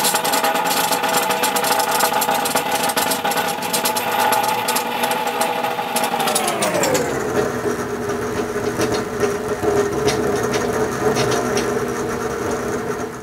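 Bead roller running as it presses beads into 3-inch mild steel exhaust tubing: a steady mechanical whir with a constant patter of small clicks. About six seconds in, the pitch glides down and holds lower until the sound cuts off at the end.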